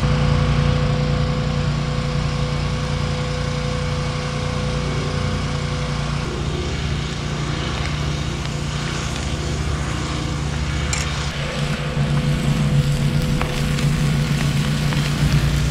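A portable generator's engine running steadily with a constant hum, growing a little louder for the last few seconds.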